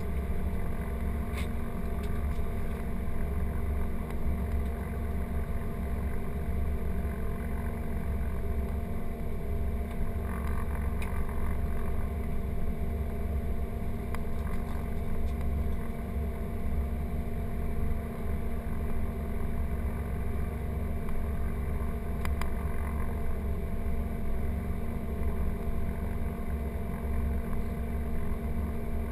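Cessna 414A's twin turbocharged Continental piston engines idling on the ground, a steady, even drone heard from inside the cabin.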